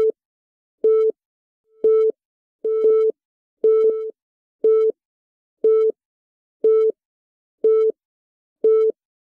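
Countdown timer beeping: a short, mid-pitched electronic beep about once a second, ten in all. It stops shortly before the end.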